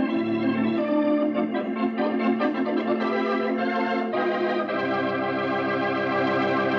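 Organ music: sustained chords that change a few times.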